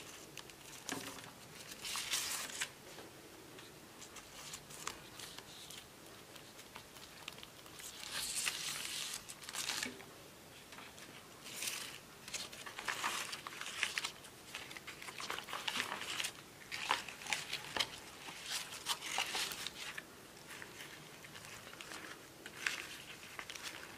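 Leaf wrapping of a cooked food parcel rustling and crinkling as it is untied and unfolded by hand, in irregular short bursts with quiet gaps between.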